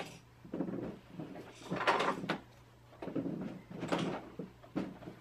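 PVC pipes and plastic fittings knocking and clattering as they are handled and fitted together: irregular knocks and scrapes, loudest about two seconds in.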